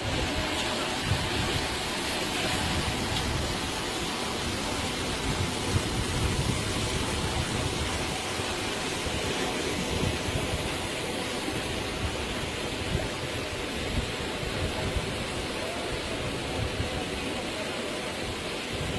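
Steady rushing water noise, an even hiss with an irregular low rumble underneath.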